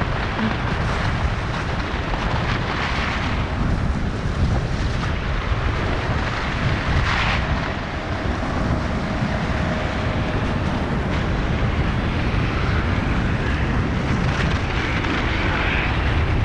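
Wind rushing and buffeting over an action-camera microphone during a fast ski run, with skis hissing over groomed snow; the hiss swells a few times, around turns.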